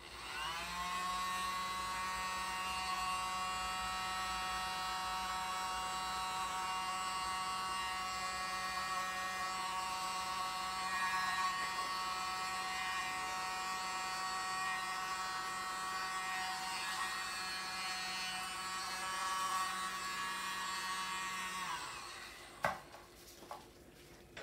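Small electric air compressor running with a steady buzzing hum, driving a handheld air nozzle. It spins up quickly at the start and shuts off about 22 seconds in, followed by two sharp knocks.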